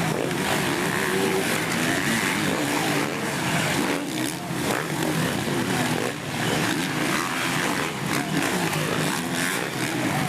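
A pack of motocross bikes, many engines revving at once, their pitches rising and falling as riders accelerate and shift.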